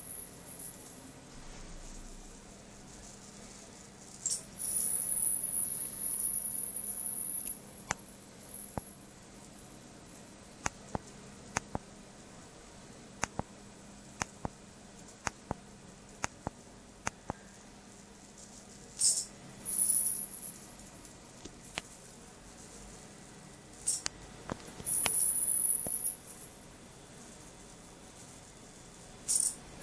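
Flyback-transformer high-voltage supply driving a wire Jacob's ladder: a steady, very high-pitched whine with the hiss of the electric arc under it. The whine briefly drops and swoops back up four times, and a run of sharp spark clicks comes in the middle.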